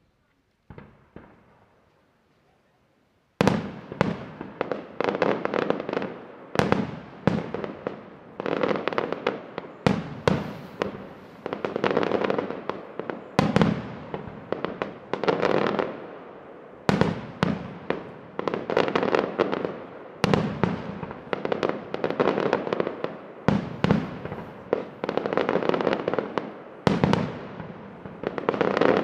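Aerial fireworks shells bursting in quick succession, roughly one bang a second, each bang trailing into crackling. After a faint pop, the barrage starts suddenly a few seconds in.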